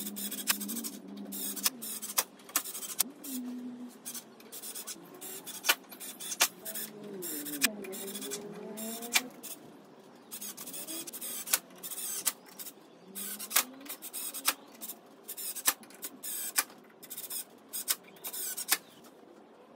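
Cordless drill working into a wooden crib rail in short runs, its motor pitch rising and falling as the trigger is squeezed and eased, with many sharp irregular clicks and knocks in between.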